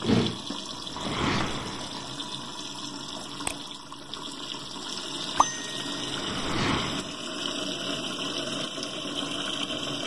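A stream of tap water pouring into a mini washing machine's tub, splashing onto the soaked clothes and the water already inside as it fills for the rinse. Two short clicks stand out, about three and a half and five and a half seconds in.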